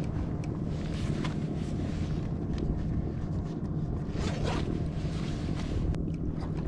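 Wind buffeting the microphone on a kayak at sea, with water lapping at the hull and scattered light clicks and knocks.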